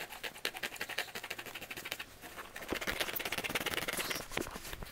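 A knife sawing through the rubber cover of a basketball, a rapid run of scratchy cutting strokes that grows louder from about halfway through.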